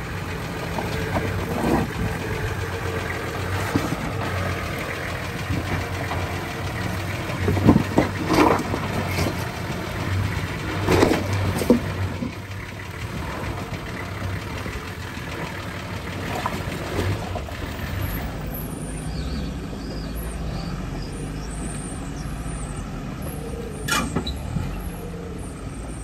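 Four-wheel-drive vehicle driving slowly over a rough, rutted dirt track: a steady low engine rumble with a few sharp knocks and jolts from the bumps, the loudest clusters about a third of the way in and near the middle, and one more knock near the end.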